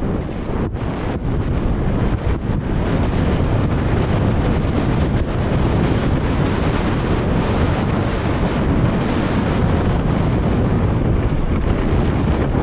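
Wind buffeting the microphone over the rumble and rattle of a downhill mountain bike rolling fast over a rough dirt and gravel trail, with a few sharp knocks in the first couple of seconds.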